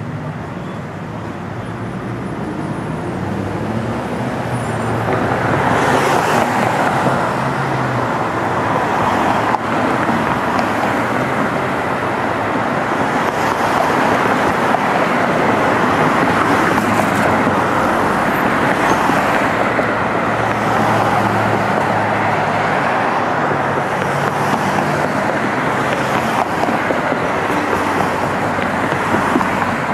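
Road traffic: a steady stream of cars passing close by on a multi-lane street, tyre and engine noise building over the first few seconds and then staying loud.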